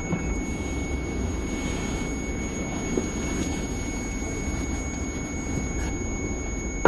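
A car's warning chime sounding as one steady, unbroken high-pitched tone while the driver's door stands open. Under it runs a low rumble.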